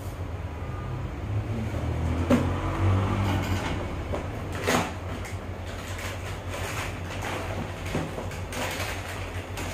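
Cardboard food box being handled and opened: rustling and scraping of the carton and its flaps, with a few sharp knocks, the clearest about two seconds and nearly five seconds in, over a steady low hum.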